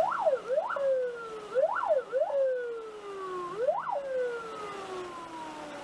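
Emergency vehicle siren sounding close by: several quick upward whoops, each followed by a long slow fall in pitch, the last fall fading out near the end.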